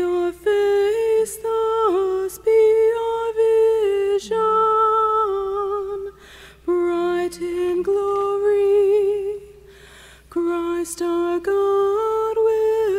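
A solo woman's voice singing a slow hymn in long held notes with a slight vibrato, breaking off twice for breath.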